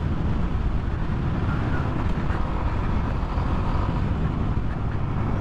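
Steady wind and road noise from riding a Yamaha NMAX 155 scooter at an even pace, a continuous low rumble.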